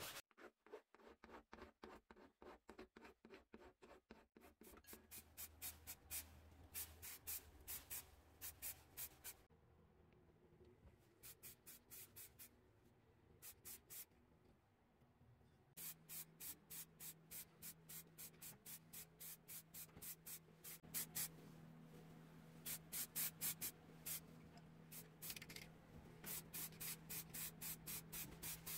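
Hand file worked across a small metal scale part, in quick, regular strokes. Further runs of short strokes, about two a second, follow, with a faint steady hum in the second half.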